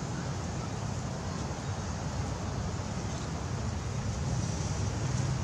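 Steady outdoor background noise: a continuous low rumble with a hiss above it, and no distinct events.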